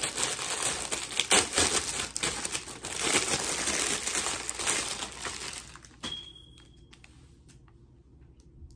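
Clear plastic packaging bag crinkling as it is unwrapped from a metal wall key holder. The crinkling stops about six seconds in, leaving a few light clicks.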